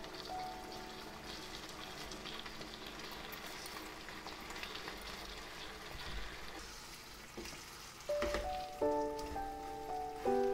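Spaghetti in tomato sauce sizzling in a frying pan on a gas flame as fresh greens are tipped in, with a few knocks and scrapes of a wooden spatula stirring. Soft background music comes back in near the end.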